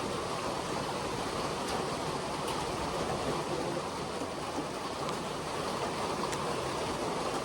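Steady heavy rain, a dense even hiss with a few single drops ticking now and then.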